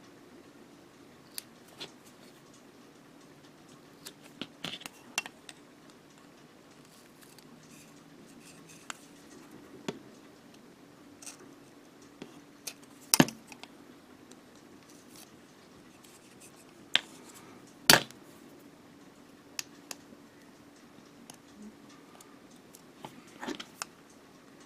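Hobby knife working on masking tape over plastic model kit parts: scattered small clicks, scrapes and taps of the blade and parts, with two sharper, louder clicks about 13 and 18 seconds in.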